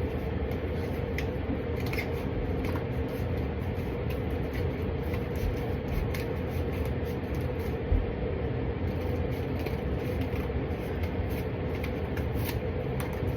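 Steady low background hum, with faint scattered clicks and rustles of card being handled during a cardboard craft.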